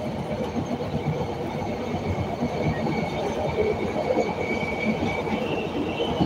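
CTA Red Line rapid-transit train running on the elevated track: steady wheel-on-rail rumble and rattle heard from inside the car, with a faint high-pitched whine over it that steps higher about five seconds in.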